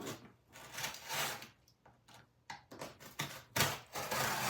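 Cardboard box being cut open with a blade: a run of short scraping slices and clicks, turning into a longer continuous rasping cut near the end.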